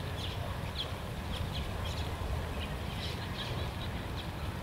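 Small birds chirping: short, high chirps a few times a second, over a steady low rumble.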